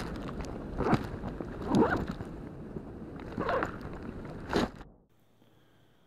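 Handling noise from a GoPro action camera being carried or stowed: a low rumble of rubbing against the microphone with several louder rustles and bumps. About five seconds in it cuts off to the near-silent hush of a quiet room.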